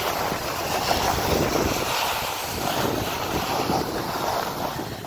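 Steady rushing and scraping of skis gliding over packed snow, mixed with wind on the microphone while skiing.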